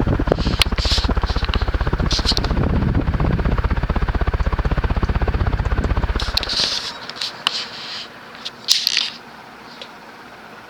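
Early-1980s Gulf Coast (TAT) 36-inch industrial ceiling fan running on medium speed, which is kind of fast, with a fast, even low pulsing of air from the blades. About two-thirds of the way through the pulsing drops off sharply to a quieter steady run, followed by a few short scraping rustles, the loudest at about nine seconds.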